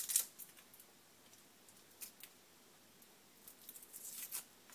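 Dry, papery skin being peeled off a garlic clove by hand: short crackles at the start and about two seconds in, then a longer run of crackling near the end.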